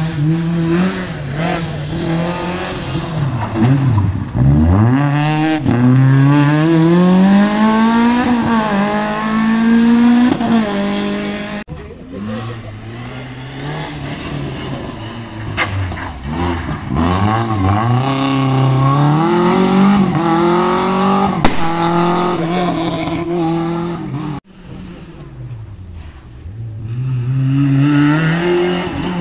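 Rally car engines running hard near a hairpin. The revs climb and fall again and again, then the sound breaks off abruptly twice as it switches to the next car.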